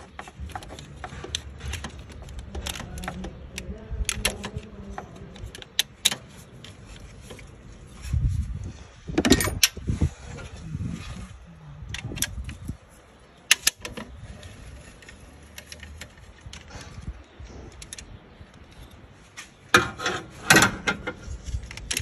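Hand tools and engine parts being handled in a car engine bay: scattered clicks, clatter and knocks, with louder bursts about eight seconds in and again near the end.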